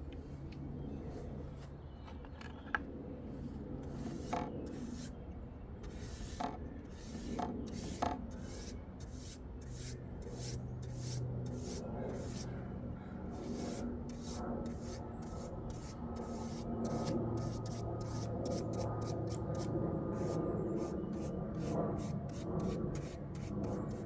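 Repeated back-and-forth rubbing strokes on a stained wooden practice piece. The strokes start out sparse and grow faster, reaching about three a second in the second half, over a low steady hum.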